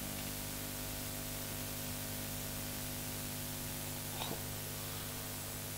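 Steady electrical hum with hiss: room tone of a classroom, with one faint short sound about four seconds in.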